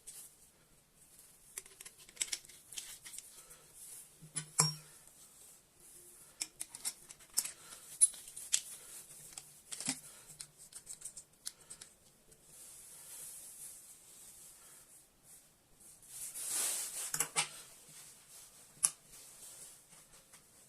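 Hand work on plumbing parts: scattered small clicks, taps and scrapes, with a short rush of hissing noise about three-quarters of the way through.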